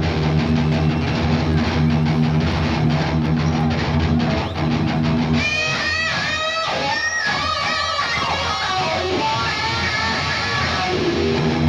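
Live heavy metal band playing loud, with distorted electric guitar riffing over bass and drums. About five seconds in the band drops out, leaving a lone lead electric guitar playing bending, sliding high notes. The full band comes back in near the end.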